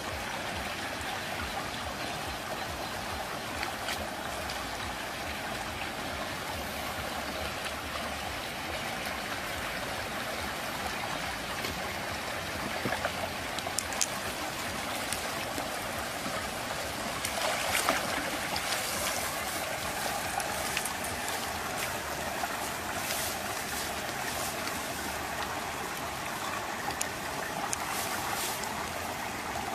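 Steady rush of flowing water, with splashes and knocks about halfway through as a hooked fish thrashes at the water's edge.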